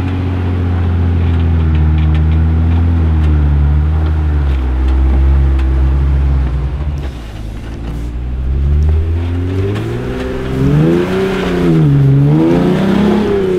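Jeep Wrangler engine running at low revs, dipping in level about seven seconds in, then revved up and down several times near the end.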